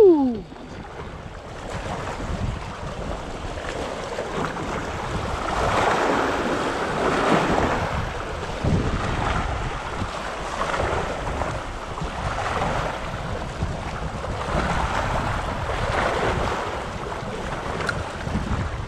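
Choppy bay water washing and splashing against the shoreline, swelling every couple of seconds, with wind rumbling on the microphone.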